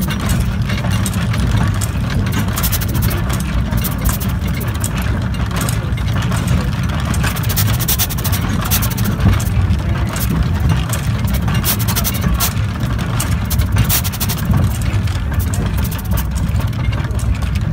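Replica Steam Elephant steam locomotive running along the track, heard from its footplate: a steady low rumble with irregular spells of sharp hiss and clatter on top.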